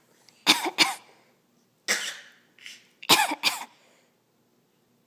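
Two people coughing at each other in turns: a quick double cough, then a single longer cough about two seconds in, then another quick double cough.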